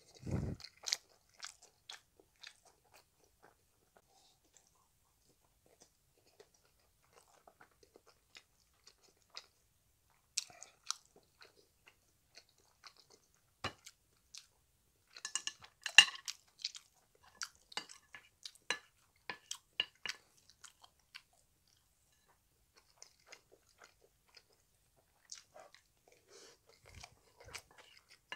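Close-miked chewing of Chapagetti noodles and kimchi fried rice: wet mouth clicks that come in spells, busiest about halfway through and again near the end.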